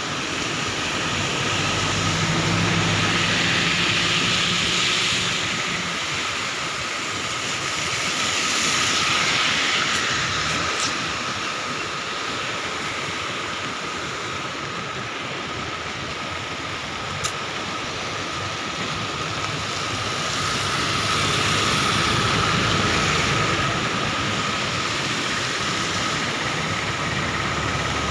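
A river in flood after heavy rain, its brown water rushing below the bridge in a steady, noisy torrent. A low hum swells and fades twice.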